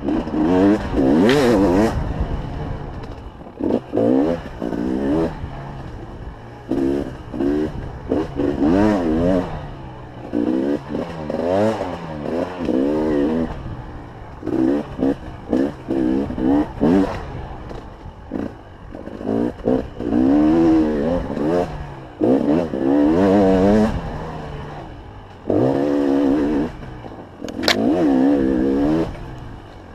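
A 300 TPI fuel-injected two-stroke single-cylinder enduro motorcycle being ridden hard. The engine revs up and drops back again and again as the throttle is opened and chopped through the gears and corners, with some clatter mixed in.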